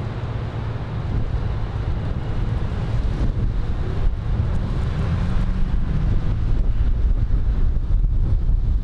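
Wind buffeting the microphone in a steady low rumble, mixed with street traffic noise.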